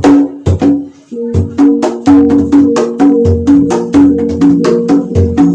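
Traditional pencak silat percussion ensemble playing: hand-struck barrel drums (kendang) in quick strokes over small hanging gongs ringing a few alternating notes in a steady pattern. The playing breaks off briefly about a second in, then picks up again.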